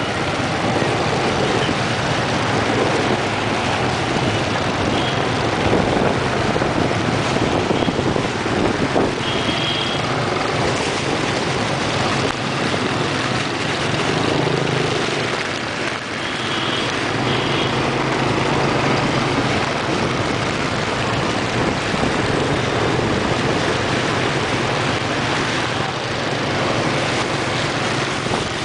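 Motor scooter riding through traffic on a wet road: a steady low engine hum under a broad hiss of wind and tyres on the wet surface. A few short high beeps stand out, about 9 to 10 seconds in and again around 17 seconds.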